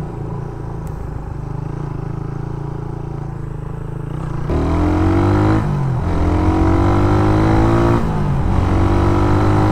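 Suzuki Raider 150 underbone motorcycle's single-cylinder four-stroke engine, running steadily at first, then pulling hard from about halfway. Its revs climb, dip briefly twice as it shifts up, and climb again.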